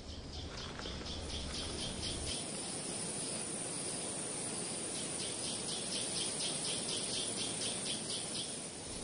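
Wildlife ambience: a high chirping repeated about five times a second, in two runs separated by a pause of a couple of seconds, over a steady hiss.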